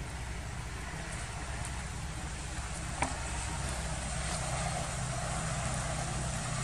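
Steady outdoor background noise with a low rumble like distant traffic, and one sharp click about three seconds in.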